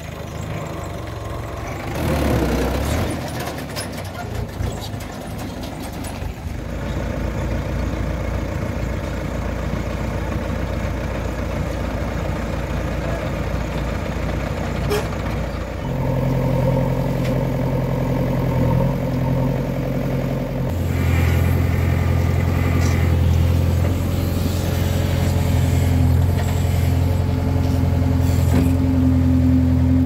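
Diesel engines of a Mahindra tractor and a JCB 3DX backhoe loader running. In the second half a steady, deep engine drone steps up in level about halfway through and again a little later.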